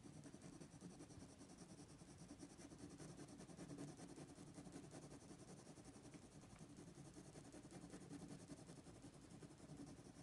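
Faint scratching of a graphite pencil shading on drawing paper in quick, even back-and-forth strokes.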